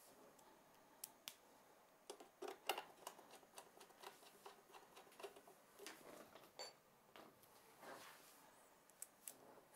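Faint, scattered clicks and ticks of a small hand screwdriver driving the perimeter screws back into the mixer's mounting panel.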